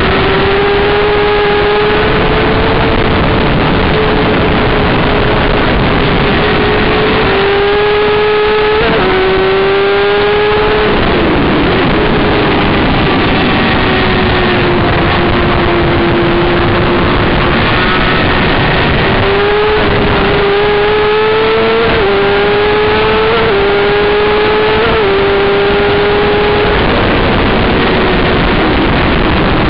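Sport bike's inline-four engine at full throttle on track, heard from onboard: the revs climb and drop sharply at each upshift, twice about eight to ten seconds in and several more times from about twenty seconds in, with the engine note falling away in between as the bike slows for a bend. Heavy wind rush over the camera runs underneath and buries the engine near the end.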